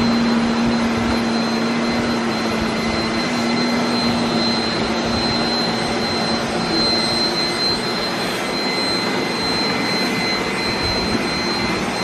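Several robot vacuum cleaners running at once: a steady whir with a constant high whine and a low hum that weakens about halfway through.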